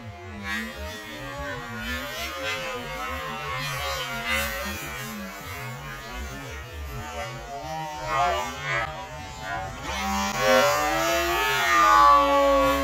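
Radio-controlled speedboat's motor whining over the water, its pitch rising and falling with the throttle, with the hiss of the spray it throws up. Louder near the end as the boat passes close.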